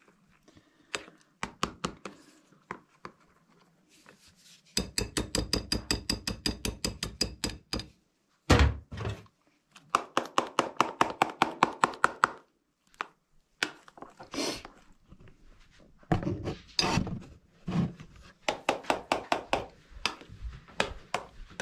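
Batter being beaten by hand in a metal bowl: quick, rhythmic strokes of a utensil against the bowl, about six a second, in several spells, with one heavy thunk about eight and a half seconds in.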